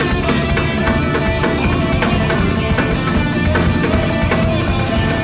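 Live rock band playing an instrumental passage led by electric guitar, with a steady beat.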